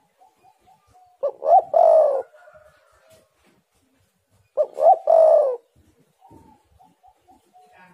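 Spotted dove cooing: two loud phrases about three seconds apart, each a short note, a rising note and a longer falling coo. Soft short notes run between the phrases.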